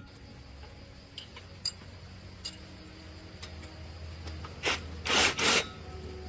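A few faint clicks, then three quick, rough scraping strokes near the end, over a steady low hum.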